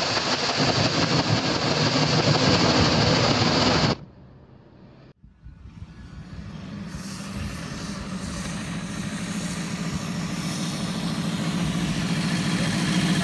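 A loud, dense noise that cuts off abruptly about four seconds in. After a short quiet gap, a vintage Matchless Silver Hawk motorcycle's 592 cc V4 engine runs at low speed and grows steadily louder as the bike approaches.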